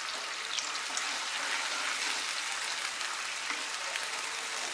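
Hot mustard oil sizzling steadily in a frying pan as freshly added wet ginger-aniseed paste fries with prawns and whole spices.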